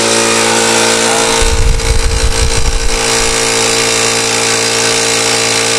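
High-pressure air compressor running steadily with a motor hum, filling a PCP airgun toward 2,000 PSI. About a second and a half in, a stretch of low, rumbling thuds is heard for a second or so.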